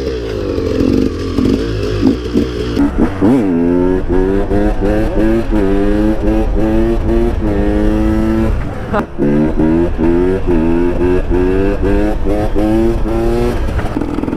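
KTM two-stroke enduro motorcycle engine revving hard, its pitch climbing and dropping again and again in quick cycles. The throttle comes off briefly about nine seconds in.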